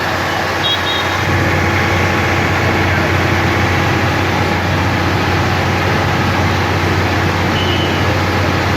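Vehicle engine running steadily with road noise, growing louder about a second in. A few faint, short high beeps sound over it.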